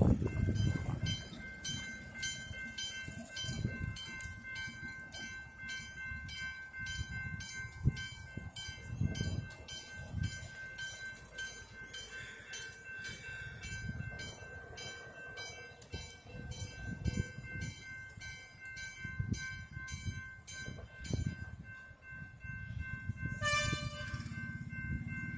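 Narrow-gauge NA-class steam locomotive working along with a steady, even beat from its exhaust and rods, about two to three beats a second. A brief whistle toot comes near the end.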